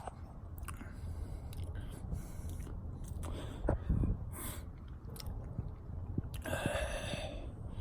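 Quiet breathing and mouth sounds from a man close to the microphone, with small clicks. A longer breathy exhale comes near the end.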